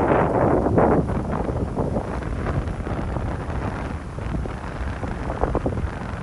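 Wind buffeting the microphone in gusts, strongest in the first second and then steadier and softer.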